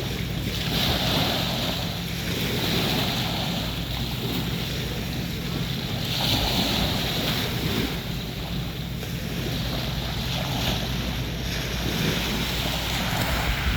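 Waves washing onto a sandy beach in repeated swells, with wind buffeting the microphone and a steady low hum underneath.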